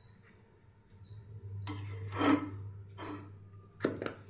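A small knife scraping Vaseline out of a plastic jar: a rasping scrape lasting about a second, loudest a little past halfway, followed by a few sharp clicks near the end.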